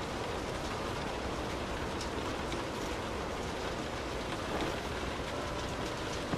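Steady rain pattering on a car's roof and windows, heard from inside the cabin, with scattered drops ticking through a constant hiss.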